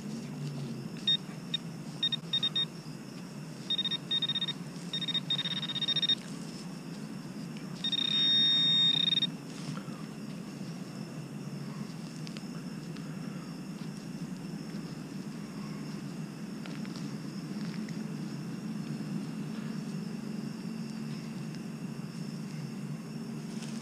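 Metal detector beeping on a buried target: a run of short, high beeps, then one longer, louder beep about eight seconds in. A steady low hum runs underneath.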